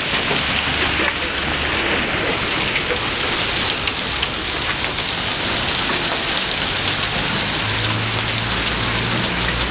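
Heavy hailstorm with rain: a dense, steady patter of hailstones striking parked cars and the pavement, with the hits on the car bodies loud.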